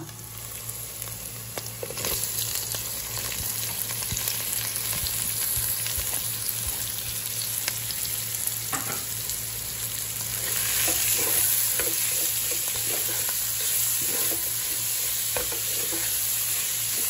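Sliced onions sizzling in hot coconut oil, the sizzle swelling about two seconds in as they spread through the pan, with a few light knocks.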